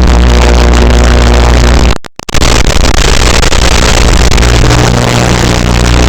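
Loud electronic music with heavy held bass notes. It cuts out abruptly for a moment about two seconds in, then comes back in.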